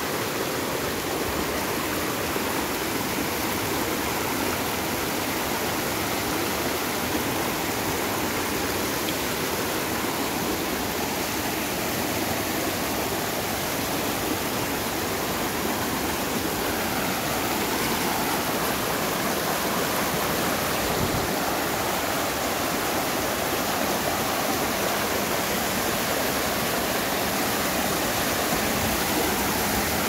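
Mountain stream rushing and splashing over boulders in small cascades, a steady, even rush of water.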